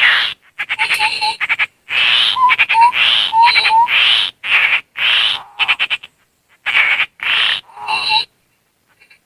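A run of harsh, rasping, rattling churr calls of the tepus landak babbler mixed with mouth-whistling, played as bird-luring sound. Short rising whistled notes come in among the churrs, and the sequence stops about a second before the end.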